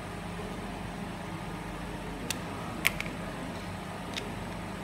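Steady low hum, with three small sharp clicks a little past two seconds, near three seconds and past four seconds in: fingers and a small screwdriver working on the handpiece's plastic connector as the rubber rings on its water fittings are pried off and fitted.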